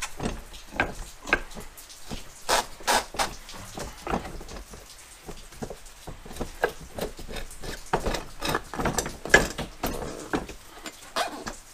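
A small mower tire being worked off its rim on a manual mini tire changer: irregular clanks, clicks and rubbery scrapes from the steel bar and the tire as the bead is forced over the rim.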